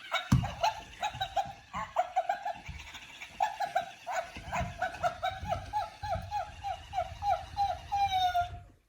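Squeaker in a plush dog toy (Hyper Pet Doggie Pal unicorn) squeaking over and over in quick, short squeaks of much the same pitch, with soft thuds from the toy being handled, ending in one longer squeak near the end.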